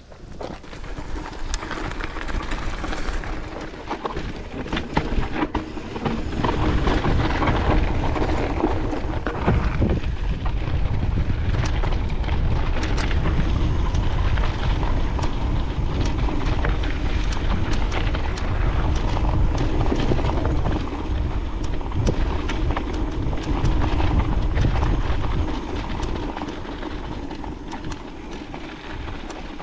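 Mountain bike riding fast down a dirt trail, heard from a chest-mounted camera: tyres rumbling over the ground, wind buffeting the microphone, and many small rattles and clicks from the bike. It builds up over the first several seconds and eases off near the end.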